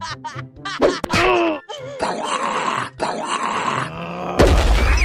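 Cartoon character voices grunting and groaning, mixed with short comic sound effects, and a loud hit near the end.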